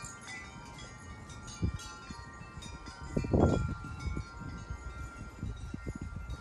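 Wind chimes ringing, many overlapping tones that linger and blend. Underneath are low rumbling wind gusts on the microphone, with a louder rumble about three seconds in.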